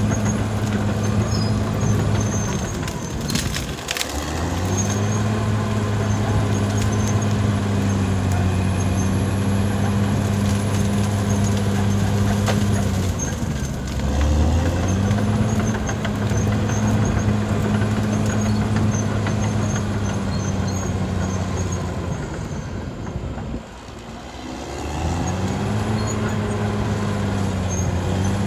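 Caterpillar D6R XL bulldozer's diesel engine running hard. Its note drops and climbs back to a steady pitch three times, about ten seconds apart, with scattered clicks and clanks.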